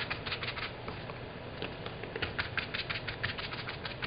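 Round sponge dauber dabbing paint onto fabric laid on a stone countertop: quick, repeated pats, several a second, easing off briefly about a second in.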